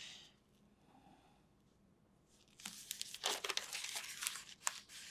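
Bible pages rustling and crinkling as they are turned by hand, in a quick run of crisp rustles starting about two and a half seconds in.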